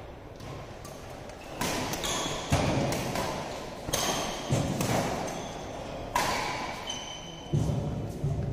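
Doubles badminton rally: rackets strike the shuttlecock about eight times in quick succession, each a sharp crack with a short ringing ping, echoing in the hall. Heavy thuds of players' feet landing on the court come in between.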